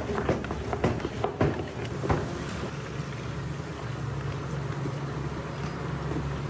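Flour-coated potato sticks being handled in a plastic tub, with a run of sharp clicks and knocks for the first two seconds. Then the potatoes are scraped with a metal spoon into a deep fryer, and the hot oil gives a steady sizzling hiss over a low hum.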